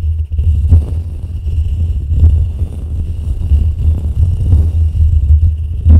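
Fingertips scratching and rubbing a foam microphone windscreen right on the mic, giving a dense, low, rumbling scratch that swells and dips irregularly.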